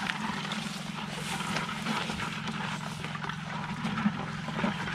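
Footsteps and rustling as a person walks through dry grass and brush, over a steady low drone.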